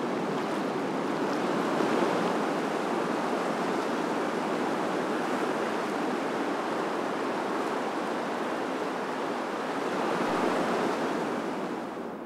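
River rapids rushing steadily: a continuous wash of whitewater that drops off just before the end.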